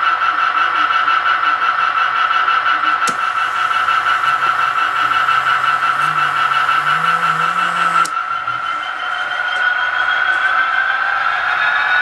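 Electric drive of an HO-scale model railway turntable whining steadily as the bridge turns, the pitch rising in the last few seconds. A hiss joins for about five seconds in the middle and stops abruptly.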